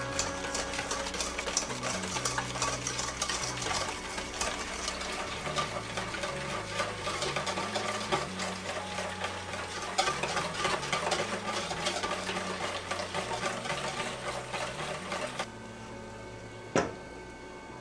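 Wire whisk beating custard in a stainless steel bowl: a fast run of clinking and scraping against the metal that stops about fifteen seconds in. One sharp click follows shortly after.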